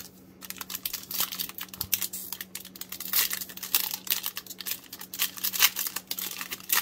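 Foil wrapper of a 2020 Donruss Optic football card pack being torn open and crinkled by hand, a dense run of sharp crackles.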